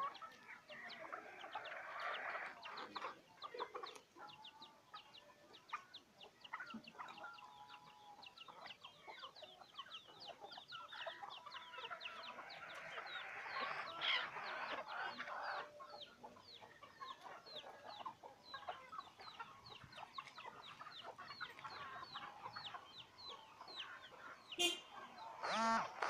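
Native chickens clucking softly as they forage, loudest about halfway through, over a faint rapid high chirping that keeps on throughout.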